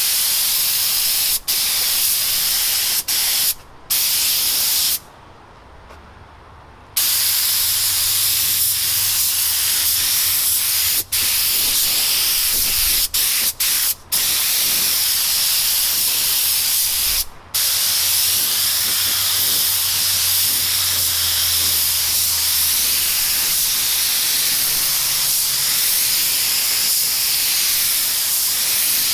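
Siphon-feed compressed-air spray gun hissing as it sprays epoxy paint, in long passes. The hiss cuts off briefly several times, with a longer break about five to seven seconds in.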